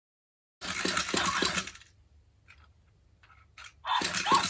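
Toy robot dog making an electronic eating sound at its food bowl: rapid rhythmic crunches, about four or five a second, in a burst of just over a second, then a few faint clicks, then the crunching again near the end.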